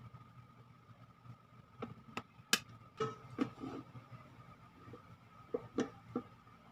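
Kitchen handling sounds: a series of light clicks and knocks, the loudest about two and a half seconds in and a few more near the end, over a faint steady hum.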